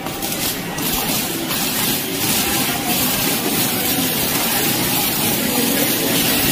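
Steady, loud background noise: an even rushing hiss over a low rumble, with no clear tones or rhythm.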